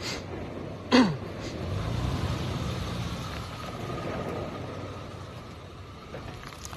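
Toyota Prado's engine labouring in a low, steady drone as the SUV works its way up a steep off-road slope, swelling about two seconds in and then easing. A brief falling shout about a second in is the loudest moment.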